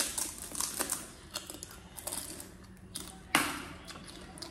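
Crisp pani puri shells crunching as they are bitten and chewed, an irregular run of small crackling clicks with one louder crunch about three seconds in.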